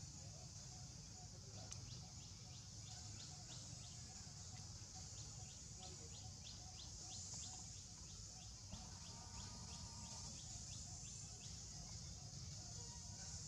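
Faint outdoor ambience: a steady high hiss of insects, with a run of short, quick chirps, about three a second, through the middle.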